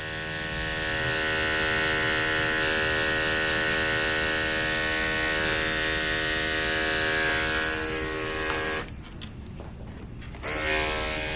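Andis electric dog clipper with a #40 blade running steadily as it trims the hair between a dog's paw pads. The hum breaks off about three-quarters of the way through and starts again about a second and a half later.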